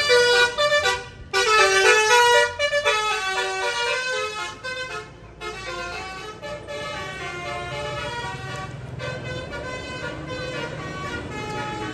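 Indonesian bus basuri telolet horn, a multi-trumpet musical air horn, playing a quick melody of short stepped notes. It is loud for the first four to five seconds, then goes on more quietly over the low running of the bus engine.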